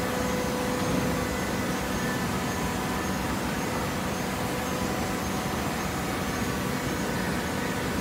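Automatic horizontal hydraulic baler running: a steady mechanical hum and noise with faint constant whine tones, without a break.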